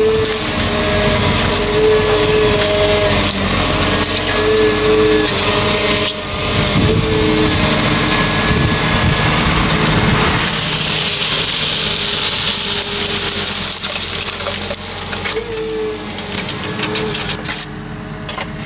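Excavator's engine and hydraulics running under load while its hydraulic rotating brush sweeps loose soil, the hydraulic whine shifting in pitch every second or so as the operator moves the arm. About ten seconds in, a louder hissing, scraping stretch of several seconds as the brush works through the soil.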